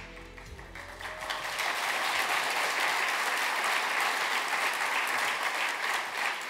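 Audience applauding, swelling about a second in as the walk-on music fades out underneath, then holding steady.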